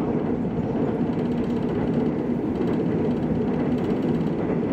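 Seoul subway Line 2 train running at a steady speed, heard from inside the car as a constant rumble and wheel-on-rail noise.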